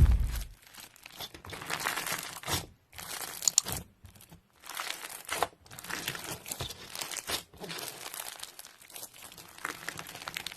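Slime being squeezed and worked by hand, making irregular crackling, crinkling sounds in short bursts with brief pauses between them.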